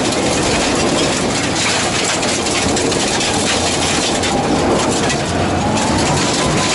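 Subaru Impreza GC8's flat-four engine running hard at speed on gravel, heard from inside the cabin, over a steady rush of tyre noise and stones rattling against the car's underside. The engine note rises near the end.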